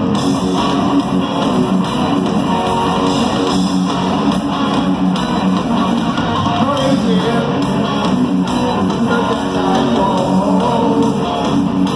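Live rock band playing loud, with heavy electric guitar leading and no singing.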